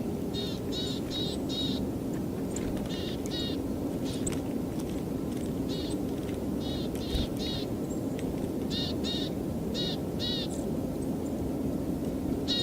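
Small songbird calls in quick runs of three or four high notes, repeated several times, with a few sharp taps of a Eurasian nuthatch pecking at sunflower seeds in bark between them. A steady low hum runs underneath.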